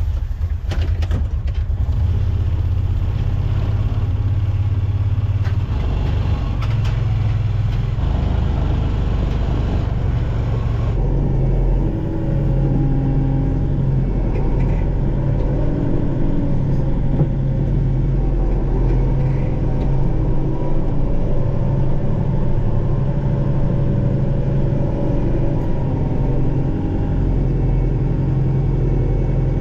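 Kubota MX5400 tractor's diesel engine running steadily, heard from inside the cab.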